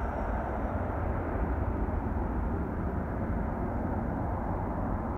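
Distant jet roar of an Airbus A320-214's CFM56 turbofan engines as the airliner climbs away after takeoff, steady, growing gradually duller as it recedes. A low rumble of wind on the microphone lies underneath.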